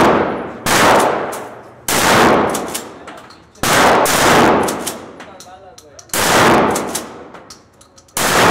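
A gun fired in single shots about one to two seconds apart, roughly six bangs, each with a long echo from the enclosed indoor range.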